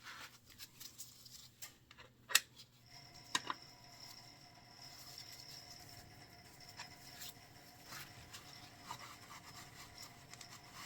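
Quiet scraping and rubbing of a metal Allen key working a motorcycle oil drain plug back in, with a sharp metal clink a little over two seconds in and a lighter one a second later. A faint steady whine sets in about three seconds in.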